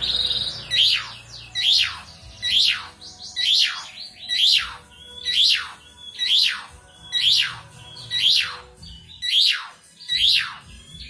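Asian pied starling (jalak suren) repeating the same loud whistled call about once a second, about twelve times. Each call is a short high note followed by a long whistle that slides steeply down in pitch.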